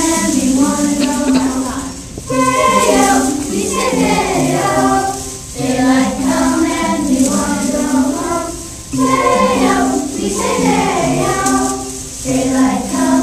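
A group of children singing, phrase after phrase, with a short break about every three seconds.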